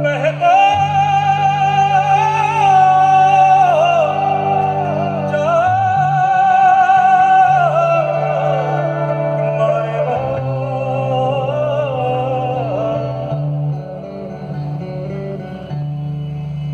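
Live Indian fusion band music: a slow lead melody with long held notes, vibrato and sliding pitch over a steady low drone.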